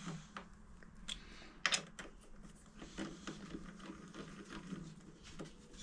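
Light metallic clicks and taps of a small hand tool and nut being worked on a motorcycle's brake linkage, sharpest about two seconds in, over a faint steady hum.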